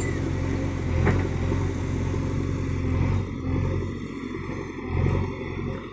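JCB backhoe loader's diesel engine running with a steady deep hum, with a single knock about a second in. The engine eases off after about three seconds and surges briefly about five seconds in.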